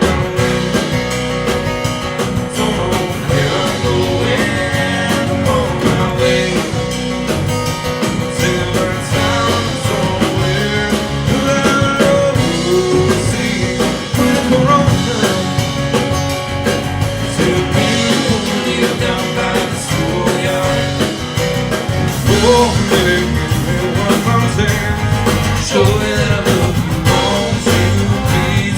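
A band playing a rock-and-roll style song with a singer and a steady beat.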